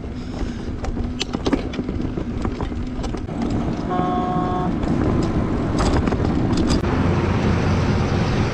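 Road traffic noise with a single short vehicle horn toot about four seconds in; the noise grows louder afterwards.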